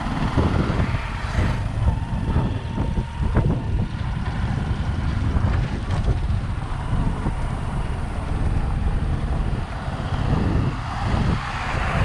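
Wind rushing over the microphone of a camera on a moving vehicle, over the rumble of the vehicle running on a rough dirt road. A bus passes close alongside near the end.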